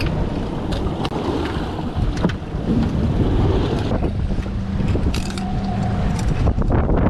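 Wind buffeting the microphone aboard a moving boat, over the low drone of its engine and the sea, with a few sharp knocks scattered through it.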